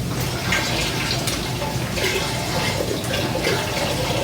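Chicken broth pouring steadily into a cooking pot, a continuous splashing of liquid.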